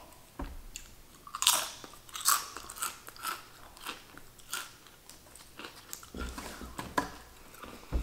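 Close-up crunching of kettle-cooked potato chips being bitten and chewed: a string of crisp, irregular crunches.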